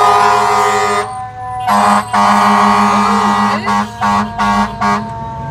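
A loud vehicle horn sounds in blasts at one steady pitch. It holds a long blast, breaks off about a second in, resumes for a couple of seconds, then gives a rapid string of short honks.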